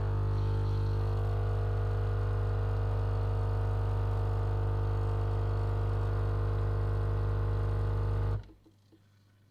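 Philips LatteGo coffee machine's pump running with a steady, deep buzzing hum while dispensing the latte. It cuts off suddenly about eight seconds in, followed by a couple of faint clicks.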